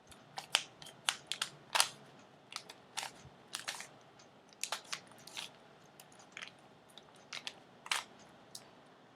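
Plastic Rubik's cube being twisted by hand: irregular sharp clacks of the layers turning, some single and some in quick runs of two or three.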